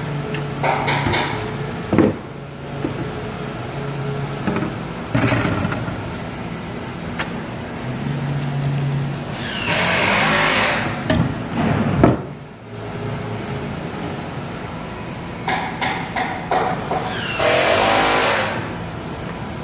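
Cordless impact driver rattling in short bursts as it drives screws into a sheet-metal enclosure, with a few separate knocks. Around the middle and near the end, the crinkle of a plastic parts bag being handled.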